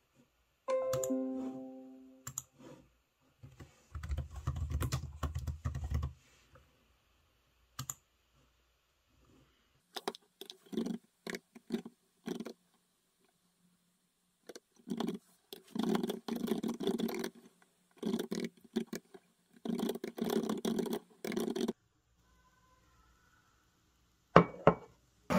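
Typing on a low-profile computer keyboard: scattered keystrokes, then long quick runs of key clicks in the second half. A single ringing tone sounds about a second in, and a sharp knock comes near the end.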